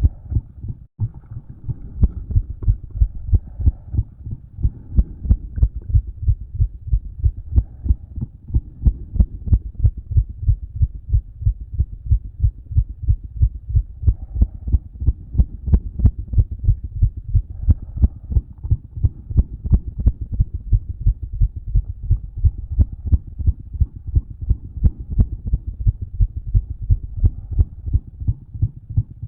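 A human heartbeat heard through a stethoscope, beating fast and even right after exercise, with a heart murmur between the beats.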